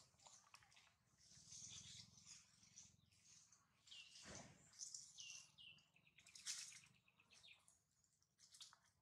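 Near silence with faint, high chirps, a few of them short calls falling in pitch around the middle, and some light scuffs and clicks.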